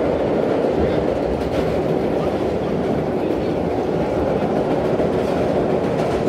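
Vintage IND R1-9 subway car running through a tunnel, heard from inside the car at the front window: a loud, steady rumble of wheels on rail and running gear.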